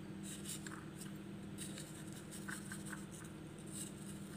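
Faint scraping and rustling of a plastic spoon rolling a fish ball through crushed cornflakes in a bowl, with a few light ticks.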